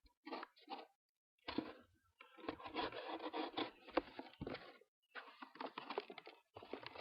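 Folding knife's Tonto blade sawing through a cardboard box in rough scraping strokes, coming in about four stretches with short pauses between.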